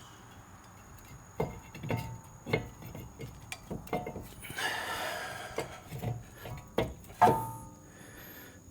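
Front brake caliper on a 2011 Cadillac Escalade being wiggled and tugged against the rotor: about ten irregular knocks and clunks, with a scraping rub a little past halfway. The caliper is stuck tight because the piston has not been compressed back against the pads.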